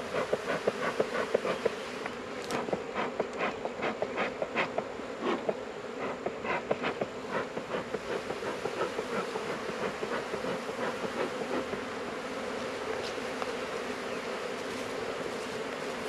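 Honeybees buzzing around a freshly opened and smoked hive, a steady dense hum of many bees. A quick irregular run of short clicks and taps sounds over the hum through the first half, then stops.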